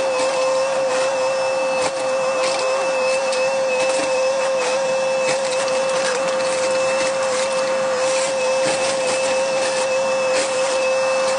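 Excavator running under load with a steady, high hydraulic whine, while frequent sharp cracks and knocks come from the house structure it is breaking apart.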